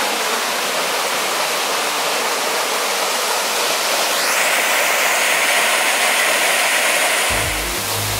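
Small forest waterfall splashing into a pool: a steady rush of falling water that grows louder and brighter from about four seconds in. Low background music starts near the end.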